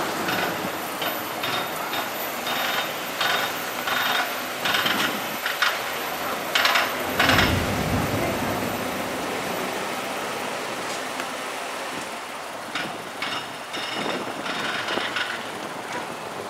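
Steady engine drone from a low-flying four-engine turboprop (a JMSDF P-3C Orion) passing over, mixed with road-traffic noise. Irregular sharp clicks run through the first half and again near the end, and a heavy low rumble swells about seven seconds in.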